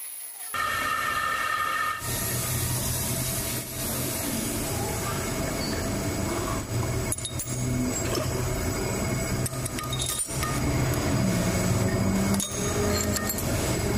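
A steady machine hum in a metalworking shop, with a few light metal clinks and knocks as steel lathe parts are handled.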